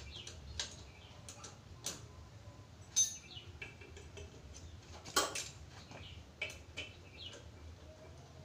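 Hand tools clinking and clicking against the engine of an old Honda Supra X motorcycle as it is taken apart: scattered light metallic clinks and ticks, with two louder knocks about three and five seconds in.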